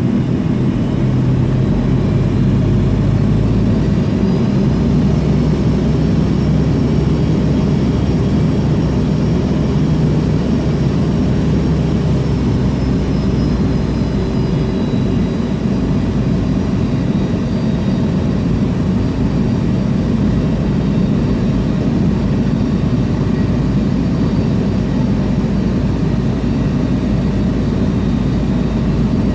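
Steady rumble of an MD-80's rear-mounted Pratt & Whitney JT8D jet engines heard from inside the cabin, with a faint high whine that rises and then falls.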